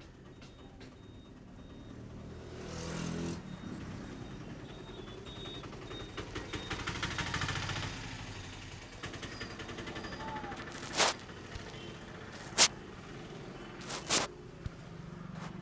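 Hands working a head massage: rubbing, then a fast run of light tapping on the head, followed in the last few seconds by four sharp, loud slaps of the palms.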